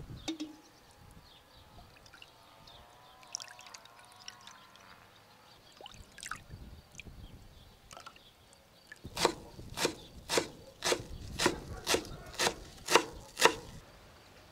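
Beef bone broth ladled out of a large pot and poured into a bowl with quiet splashes and trickles, then nine sharp knocks about two a second near the end.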